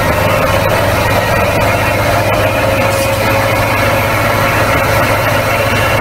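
Heavy piling machinery running steadily: a loud, constant machine drone with a low hum underneath.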